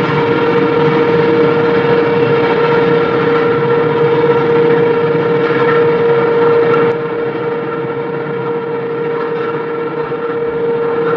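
A freight train of flatcars rolling along the track, its wheels on the rails making a steady rumble over a constant high whining tone. The rumble drops about seven seconds in as the last wagons draw away, while the tone carries on.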